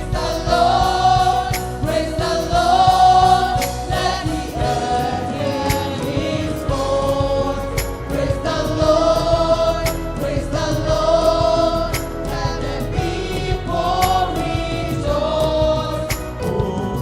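A group of singers performing a gospel praise song in harmony over a live band, with regular drum hits.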